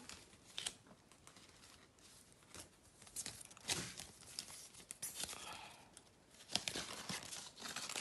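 Jamaican banknotes rustling and crinkling as they are handled and put back into a cash envelope, in short scattered rustles with a few louder ones.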